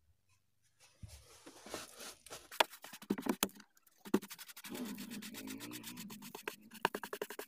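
Wide bristle paintbrush scrubbing car floor carpet in quick, scratchy back-and-forth strokes, sweeping grit onto a sheet of paper. It starts about a second in, and the strokes come faster over the second half.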